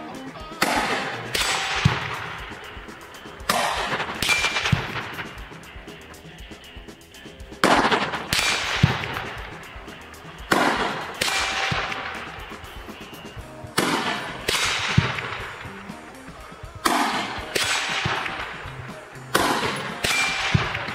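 A series of rifle shots fired one at a time, roughly every three seconds, each with a long echoing tail. A short metallic ring from a hit steel target follows several of the shots.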